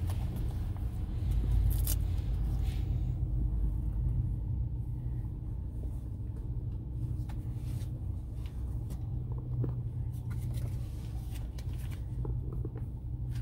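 Steady low rumble of a car heard from inside the cabin, with a few faint clicks and knocks.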